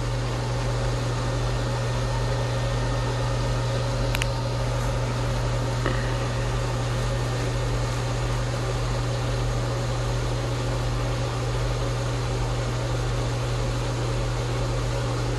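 Steady low machine hum under an even hiss, like a running fan or blower, with a single sharp click about four seconds in.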